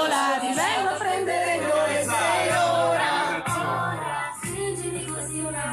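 A group of men and women singing a song together in chorus, many voices at once.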